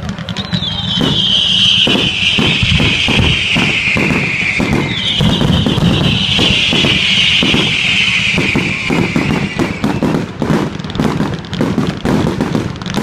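Fireworks going off: rapid crackling bangs throughout, with two long high whistles one after the other, each falling slowly in pitch over about four seconds.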